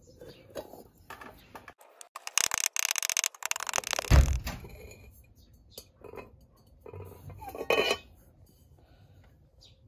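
Hammered copper pot scraping and clinking against a glass plate as it is pressed and turned to check that its rim sits level. There is a loud stretch of fast scraping from about two to four and a half seconds in, ending in a dull knock, and a shorter burst near the end.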